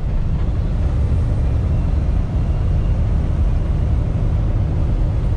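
Cab interior of a Kenworth T680 semi truck under way on the highway: a steady low diesel engine drone mixed with road noise, with no change in pitch.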